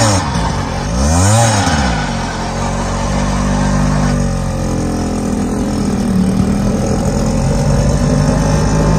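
A vehicle engine revved up and back down twice in the first two seconds, then running at a steadier speed.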